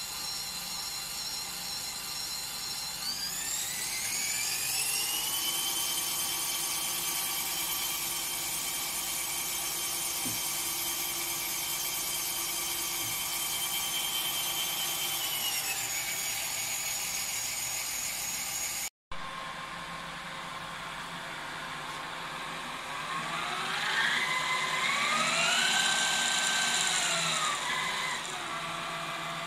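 Hauser 2BA jig borer's spindle drive running with a whine that rises in pitch over a couple of seconds, holds steady, then falls back as the speed control is worked. This happens twice.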